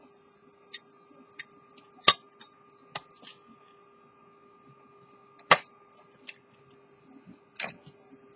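Irregular sharp clicks and taps from a gold pocket watch and its case being handled, about eight in all, the loudest about two seconds and five and a half seconds in. A steady faint hum runs underneath.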